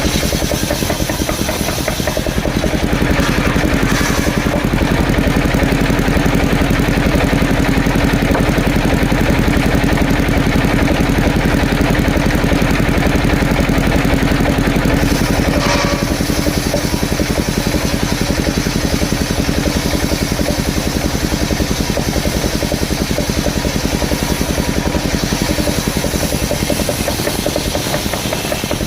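Engine of a mobile circular sawmill running steadily, with a brief clack about halfway through.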